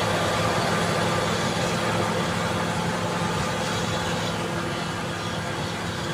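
Caterpillar D7G bulldozer's diesel engine running steadily, growing slightly quieter toward the end.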